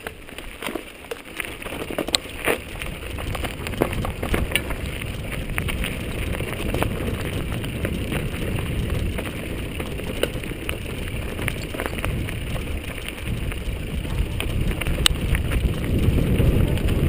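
Mountain bike rolling down a rocky dirt singletrack: tyres crunching over dirt and stones with many small clicks and knocks from the bike rattling, and wind rumbling on the on-board camera's microphone. It gets louder near the end.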